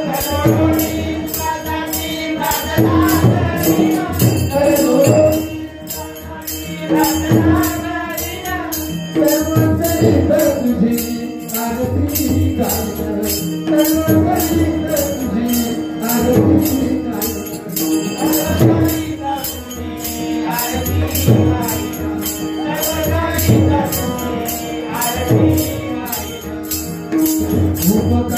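A Marathi dabalbari bhajan performed live: a lead singer and chorus sing over a harmonium's steady held note. Pakhawaj drum strokes and small hand cymbals (taal) keep a fast, even beat.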